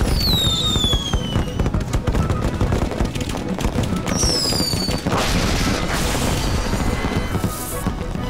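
Cartoon fireworks bursting in a dense run of booms and crackle, with two falling whistles, one at the start and one about four seconds in, over orchestral-style score music.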